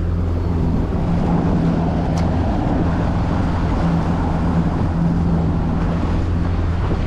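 A boat's motor running steadily under way, with a rush of wind and water over it.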